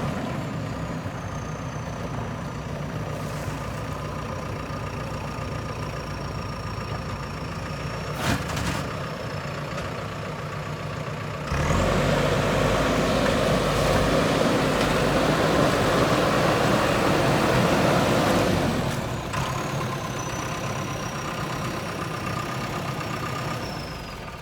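JCB 3DX backhoe loader's diesel engine running steadily, with a thin high whine over it and a single knock about a third of the way in. Around the middle the engine revs up louder for several seconds, then settles back and fades near the end.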